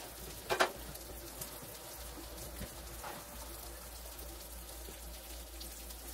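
Onions sizzling in olive oil and butter in a skillet: a steady, fine crackling sizzle. One brief louder sound stands out about half a second in.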